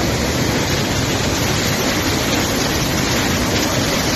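Muddy flash-flood water rushing in a fast, churning torrent: a loud, steady rushing noise with no break.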